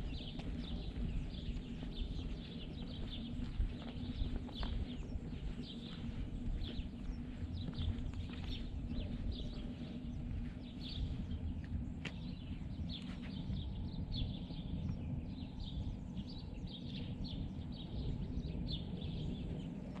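Wild birds calling, many short high chirps repeating one after another, over a steady low rumble.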